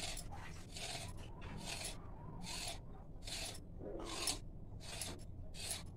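Kitchen knife drawn through rolled-out maida dough and scraping on a stone slab: a series of short rasping strokes, about one every half-second to second, as the dough sheet is cut into strips.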